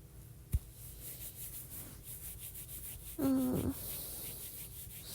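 Soft, rhythmic rubbing close to a phone microphone, several strokes a second, like fabric or hair being stroked. There is a soft thump about half a second in, and a woman gives a short, falling hummed 'mm' about three seconds in.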